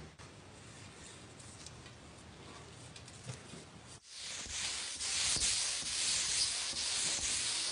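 Faint rubbing at first. About four seconds in, a paint spray gun starts a loud, steady hiss of compressed air and atomised paint over the motorcycle fuel tank, and it cuts off suddenly at the end.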